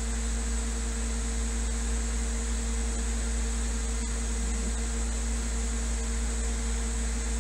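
Steady machine-shop hum: a low drone with a constant electrical hum tone and fan hiss, the idle running noise of a CNC vertical mill with its spindle stopped. A faint click comes about four seconds in.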